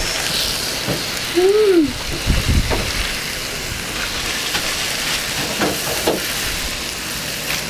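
Seasoned fish fillets frying in butter in a nonstick pan, a steady sizzle as they are flipped over with a fork. A low thump comes about two and a half seconds in.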